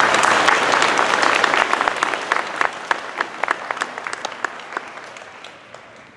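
Audience applauding, dense at first, then thinning to scattered single claps and fading out near the end.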